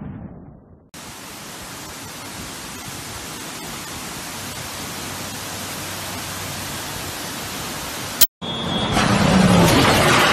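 Waterfall rushing: a steady, even hiss of falling water. Near the end comes a sharp click and a brief dropout, then a louder, rougher noise.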